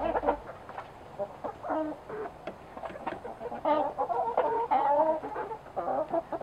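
Chickens clucking in short, repeated calls, coming thickest about four to five seconds in.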